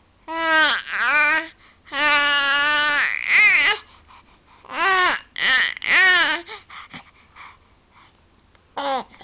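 A baby babbling and squealing: a run of short, high-pitched vocal calls, one held on a steady note for about a second, then a few soft mouth sounds and one last short squeal near the end.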